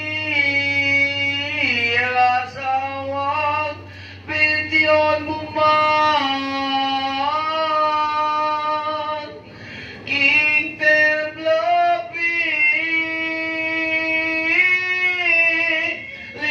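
A woman singing a slow, drawn-out chant, holding long notes that slide from one pitch to the next and breaking off twice for breath. A low steady hum runs under the first few seconds.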